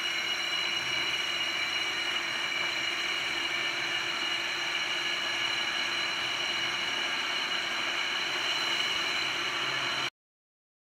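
Husqvarna DM220 handheld core drill running steadily, boring a vertical core hole dry, with the dust extractor vacuum on its hose running with it. It cuts off suddenly near the end.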